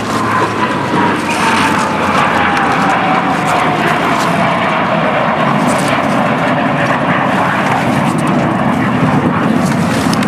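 Blue Angels F/A-18 Hornet jets flying past in formation. A loud jet roar carries an engine whine that falls slowly and steadily in pitch as they go by.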